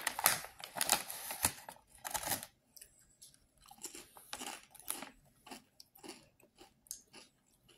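A snack bag crinkling as a hand takes potato chips out, dense for the first couple of seconds, then a person chewing the chips with scattered crisp crunches.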